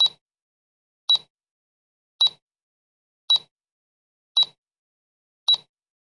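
Countdown timer's tick sound effect: a short, sharp tick about once a second, six in all, with silence between.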